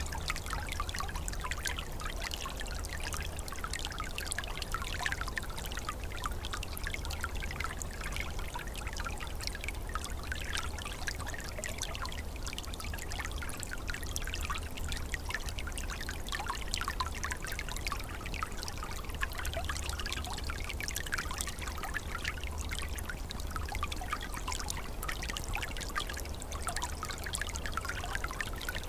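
A small, calm stream trickling and gurgling steadily over its bed, with many small splashes and bubbling flicks of water and a low steady rumble under it.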